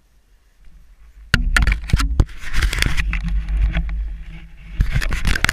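Dirt bike engine firing up about a second in and then running loudly and unevenly close to a helmet-mounted camera, mixed with sharp knocks and handling noise.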